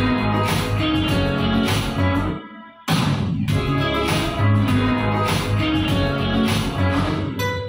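A song with guitar and a steady beat, cutting out for about half a second a little over two seconds in, then carrying on.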